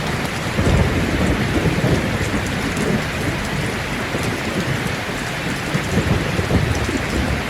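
Heavy rain pouring steadily, with low thunder rolling underneath that swells about half a second in and again near the end.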